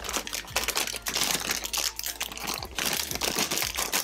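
Clear plastic bags of toy parts crinkling and rustling in the hands as they are handled and pulled out of a cardboard box: a dense, irregular run of crackles.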